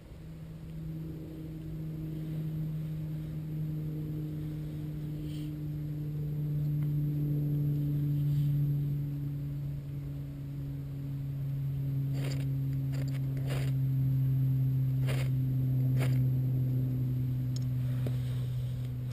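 A steady low droning tone that slowly sinks in pitch, with about five short, sharp scrapes between twelve and sixteen seconds in, the strokes of a knife spine down a ferro rod over jute tinder.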